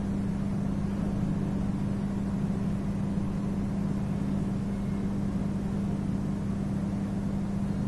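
A steady, unchanging low hum with a faint background hiss.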